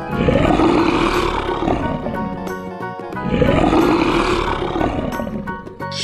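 Lion roar sound effect: two long roars, each about two and a half seconds, rising and then dying away, over background music.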